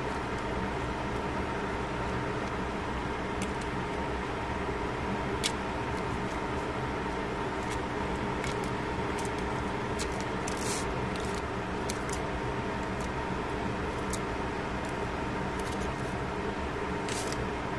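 A steady mechanical hum with several constant tones over a noisy background. A few light clicks and short crinkles of chopsticks against an aluminium-foil tray are scattered through it.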